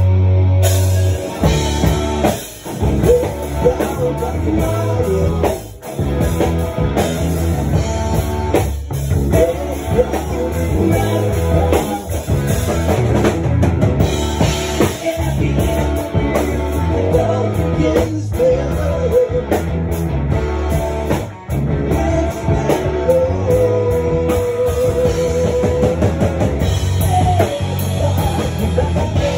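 Live rock band playing: drum kit, electric guitar and bass, with a singer's voice over the top. A held low bass note opens, and the full band comes in about a second in.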